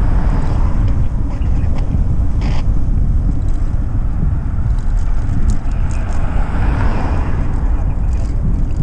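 Steady low wind rumble buffeting the microphone of a camera moving along a road, with a car passing near the start and another rise of traffic hiss about six seconds in.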